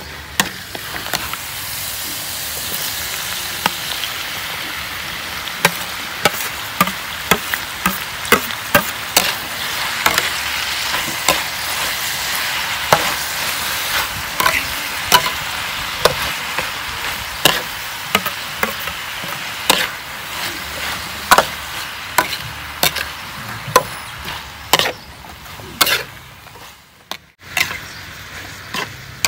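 Meat and bok choy sizzling in a steel wok as they are stir-fried, with frequent sharp clicks and scrapes of a metal spatula against the wok. The sizzle briefly cuts out near the end.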